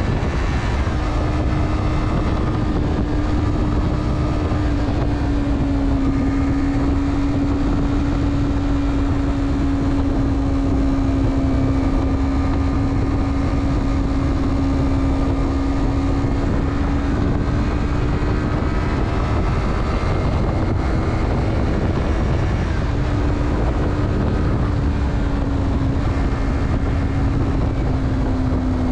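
Motorcycle engine running at steady expressway cruising speed, its note holding nearly even with a few slight dips in pitch, over a heavy rush of wind.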